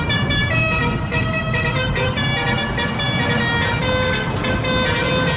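Indonesian 'telolet' bus horn playing a tune of stepped horn notes, several pitches at once, over a low engine rumble.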